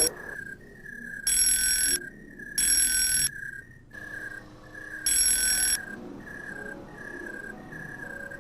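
A repeating electronic beep, a little under two a second. It is broken three times by louder short bursts of bell-like ringing, the first about a second in and the last about five seconds in.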